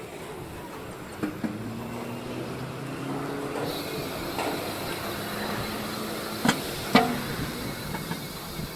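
Outdoor road noise while cycling, with the hum of a passing motor vehicle and a few sharp clicks, the loudest about two-thirds of the way through.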